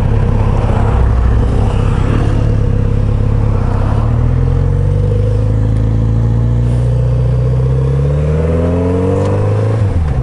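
Kawasaki Z900RS inline-four engine running under way, its pitch climbing steadily through the second half as the bike accelerates, with wind rush on the microphone.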